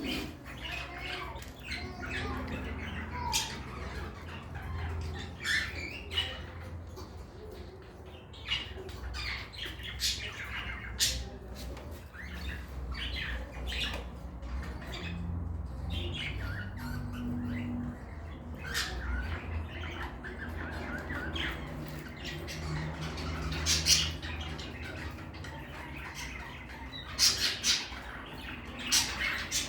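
Budgerigars chattering, with short sharp squawks and chirps at irregular intervals and a few louder calls near the end, over a low steady hum.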